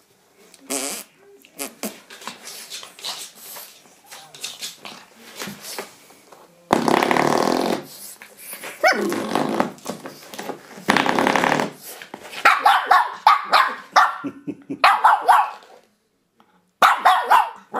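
Shih Tzu puppy growling and barking at a spring door stop. Twice, near the middle, the door stop's coiled spring twangs loudly as she knocks it. Runs of barks follow near the end.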